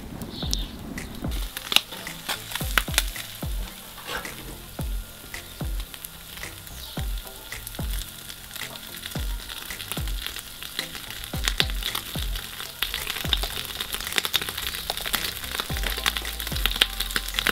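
Marinated mackerel fillets sizzling in a wire grill basket over hot charcoal, with frequent sharp pops and crackles. The hiss grows denser near the end.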